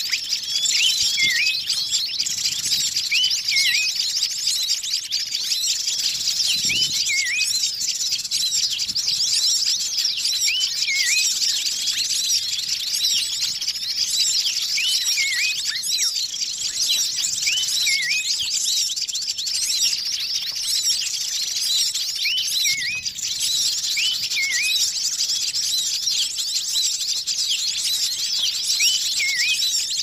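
Bird-lure recording of a noisy flock of many kinds of small wild birds chirping and twittering together in a dense, unbroken chorus, with one sharp hooked call repeating every few seconds.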